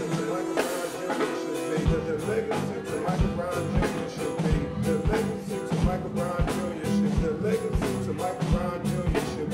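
A live band playing, with keyboard and guitar over a drum kit; a steady kick-drum beat comes in about two seconds in.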